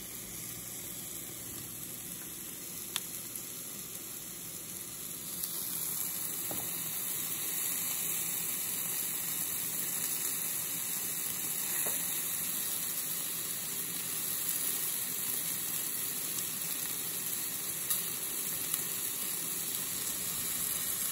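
Steak and pork chop sizzling on the grate of a Philips Smoke-less Indoor infrared grill, a steady hiss that grows louder about five seconds in.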